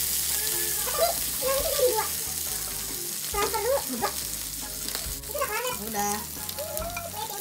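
Beef steak and garlic slices sizzling in a hot cast iron grill pan.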